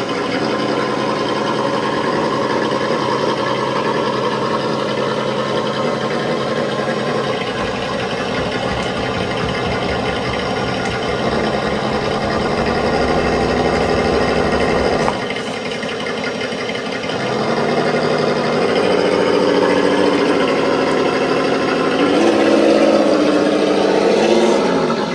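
Engine sound module in an RC Ford Bronco scale truck playing a simulated engine through its small speaker. It idles and revs, the pitch stepping up and down as the throttle trigger is worked, with rising revs near the end.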